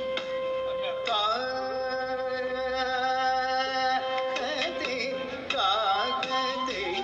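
Background music: an Indian-style song with a singing voice, including one long held note in the middle.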